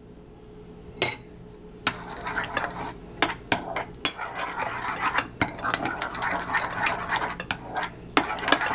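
Metal spoon stirring a thick yogurt and spice paste in a white ceramic bowl. There is one clink about a second in, then steady scraping stirring with frequent clinks of the spoon against the bowl.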